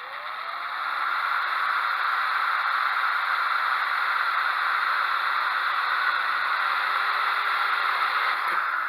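Power drill running steadily, drilling out rivet holes for a tail light. It comes up to speed about a second in, holds an even whirring hiss, and winds down near the end.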